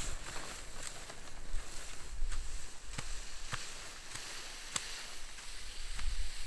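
Footsteps on icy, crusted snow on a hill, with a few scattered sharp ticks over a steady hiss of freezing rain and low gusts on the microphone.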